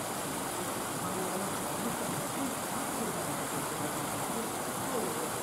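Steady background hiss with faint, indistinct voices of people talking at a distance.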